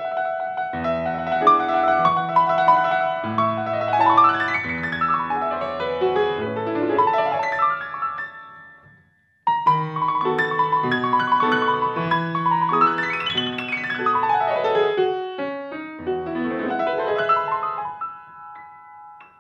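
Grand piano played solo: held bass chords under a quick run that sweeps up the keyboard and back down, heard twice with a brief pause between the two phrases about nine seconds in. The second phrase dies away near the end.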